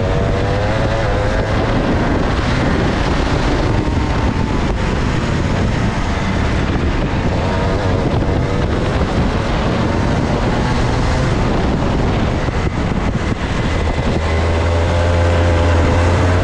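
Two-stroke kart engine running under load, its revs dropping and climbing again several times as the kart goes through the corners and along the straights, with wind noise on the microphone.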